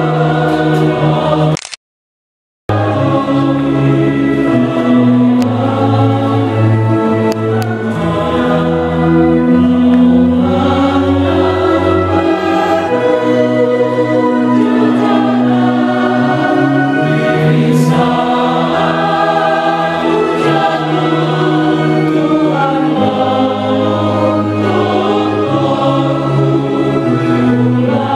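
Church choir singing a hymn in several parts, with long held chords. The sound cuts out completely for about a second near the start, then the singing carries on.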